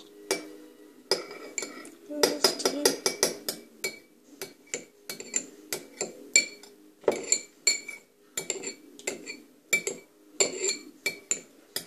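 A metal spoon stirring in a china bowl, clinking against its sides again and again; each strike rings briefly. The clinks come in a quick run of several a second about two seconds in, then more spaced out.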